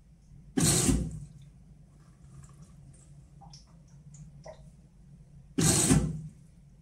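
Whirlpool washing machine running its Steam Refresh cycle: two short rushing bursts about five seconds apart, each fading over half a second or so. A steady low hum and faint ticks from the machine run underneath.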